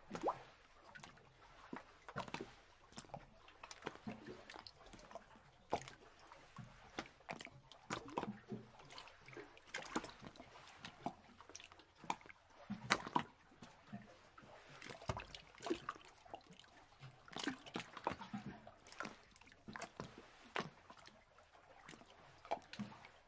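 Faint water sloshing and lapping around a boat, in irregular small splashes.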